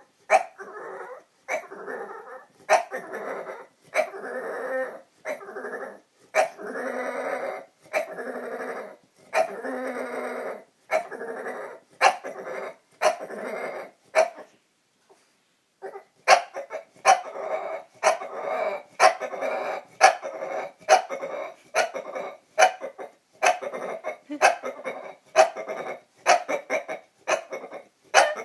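A bulldog making a long string of dinosaur-like vocal noises, one after another about once a second, each starting sharply and drawn out for up to a second. There is a pause of about a second and a half near the middle.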